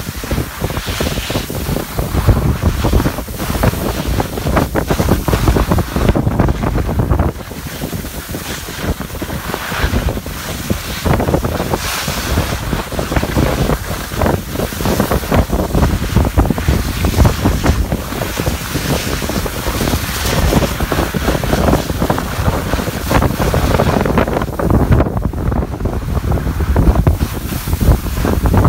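Wind buffeting the microphone of a camera moving down a ski slope at speed, with skis hissing and scraping over soft spring snow.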